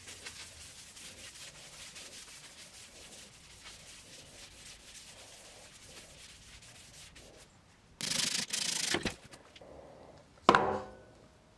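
Rag rubbing over the surface of a wood-and-resin bowl set with poker chips: a soft, steady wiping. Near the end comes a loud rushing scrape of about a second, then a sharp knock with a short ringing.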